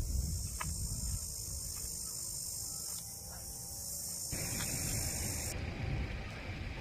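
Outdoor ambience: wind rumbling on the microphone under a steady high hiss. The background changes abruptly about four seconds in.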